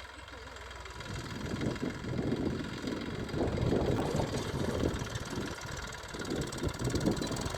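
Tractor engine running while ploughing, growing louder about a second in and surging unevenly.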